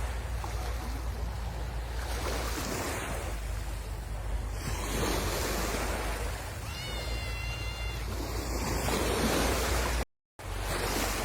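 Sea waves washing onto the shore, the surf swelling and easing every couple of seconds, with wind rumbling on the microphone. About seven seconds in a brief high whistle-like call sounds over the surf, and near the end the sound cuts out for a split second.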